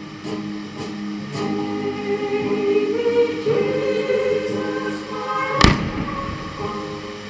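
Music with singing, and a single loud firework bang about three-quarters of the way through.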